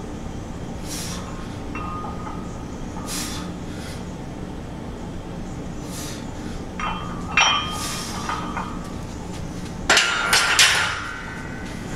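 Loaded steel barbell clanking against the power rack's metal hooks, several sharp ringing clinks: a couple about seven seconds in and the loudest cluster about ten seconds in. Before that come a few short hissing breaths about two seconds apart.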